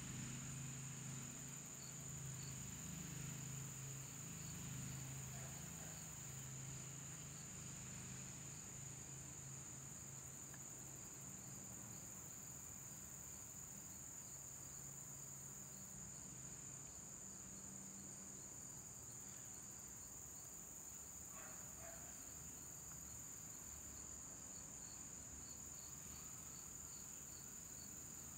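Steady, unbroken high-pitched insect trill, with a faint low hum underneath through roughly the first half.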